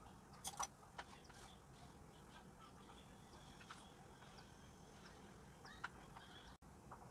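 Near silence with a few faint clicks of chopsticks against a plastic bowl while ground pork and chopped fried preserved radish are stirred together. There are two or three ticks in the first second and one more just before the end.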